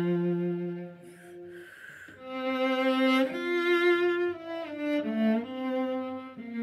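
Solo cello played with the bow: a held low note, a short soft break about a second in, then a slow melody of long sustained notes, with a slide up between two of them about three seconds in.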